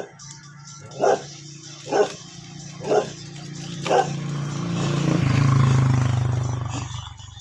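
Six short barks, about one a second, then a long low moo from a cow that swells and fades over about two and a half seconds.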